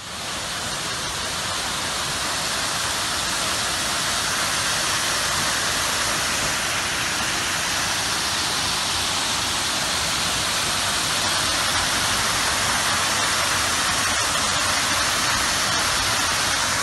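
Muddy floodwater pouring over the broken edge of a street into a large collapsed hole: a steady, loud rushing of falling water.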